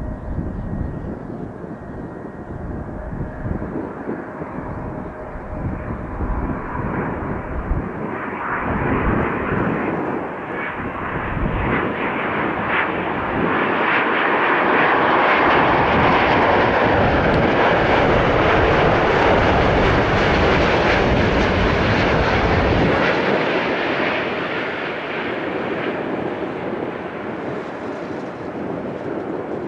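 Jet airliner on landing approach flying past, its engine noise swelling to a peak about halfway through and then fading.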